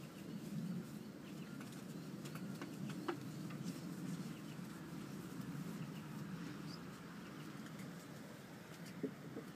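Outdoor ambience: birds calling with short, scattered chirps over a steady low hum, with a faint click or two.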